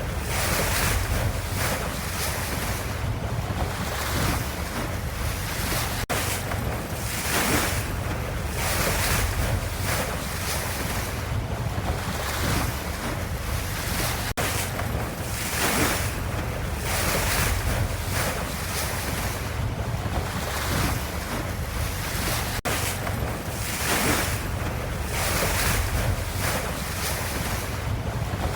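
Ocean waves washing in a continuous hiss over a low rumble, swelling and easing every second or two. The same short recording repeats about every eight seconds.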